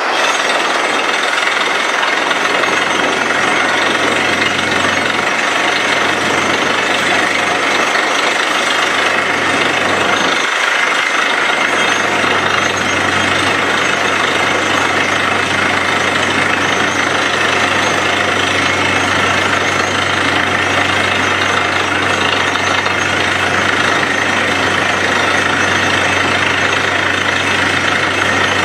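Truck-mounted borewell drilling rig running while it drills: a loud, steady engine drone holding one pitch under dense machine noise.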